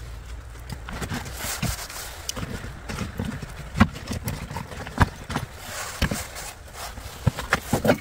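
Metal hand tools knocking and clinking as they are slotted into a hanging fabric tool organizer, with rustling of fabric and a jacket sleeve in between. Sharp single knocks come about four, five and six seconds in, and a cluster of quick knocks comes near the end.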